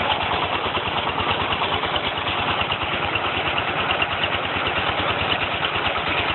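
Engine of a red-brick moulding machine running steadily at a constant speed, with a fast, even chugging pulse.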